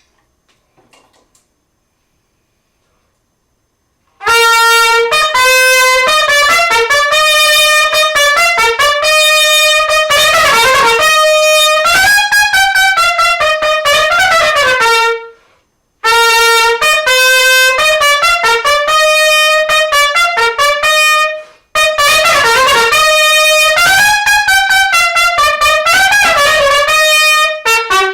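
Solo trumpet played loudly, after a few seconds of quiet: three phrases of quick tongued notes and slurred runs, separated by two brief pauses.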